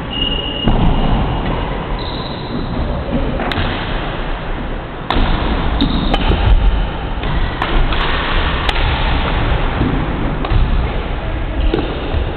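A badminton rally: several sharp racket strikes on the shuttlecock, one of them a jump smash about six seconds in, with brief shoe squeaks on the wooden court. All of it sits over a steady background noise.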